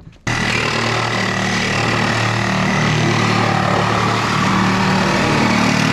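Cordless reciprocating saw cutting through the sheet-steel roof pillar of a pickup truck. It starts abruptly, runs at a steady full speed with a high whine over the motor's hum, and stops abruptly.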